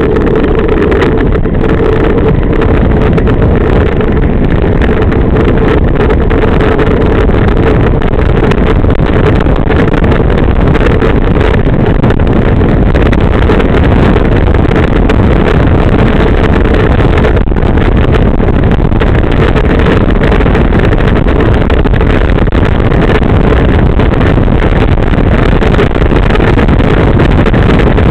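Loud, steady wind rush over the microphone of a camera on a bicycle speeding downhill. A low hum sits under it for the first few seconds, then fades.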